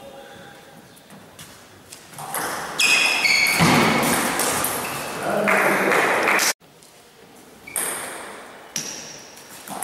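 Table tennis doubles rally: a celluloid ball knocking off rubber-faced paddles and the table in a hall. A loud stretch of mixed noise sits in the middle and ends abruptly.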